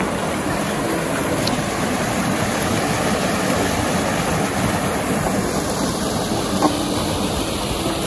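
Stream water rushing steadily over rocks.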